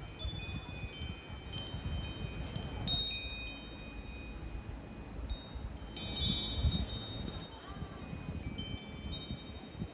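Wind chimes ringing, several clear high tones struck at irregular moments and ringing on, overlapping one another, over a low rumble.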